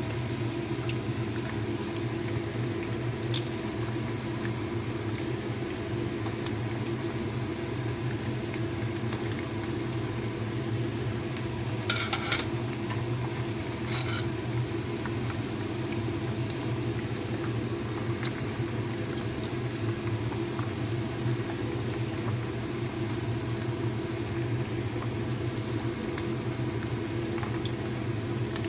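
Chicken pieces deep-frying in a wok of hot oil: a steady sizzle and bubbling over a constant low hum. A few brief clicks come through, two of them close together near the middle.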